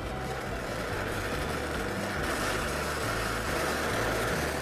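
Oxy-fuel brazing torch flame hissing steadily as it heats the steel tank around the filler neck.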